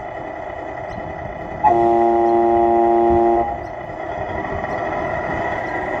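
RC truck sound unit in a 1:14 Tamiya Knight Hauler: simulated diesel engine running, with a loud multi-tone air horn blown once for about a second and a half, starting just under two seconds in.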